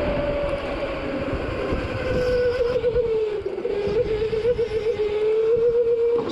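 Go-kart motor running at speed, heard from the driver's seat: its steady pitch sags for about a second midway as the kart slows, then climbs back and holds, wavering a little. Rumbling road and wind noise lies underneath.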